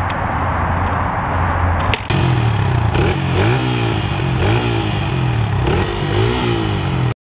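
Small Honda XR dirt bike's four-stroke single-cylinder engine running, steady at first, then blipped on the throttle from about two seconds in, the pitch rising and falling with each rev. It cuts off suddenly just before the end.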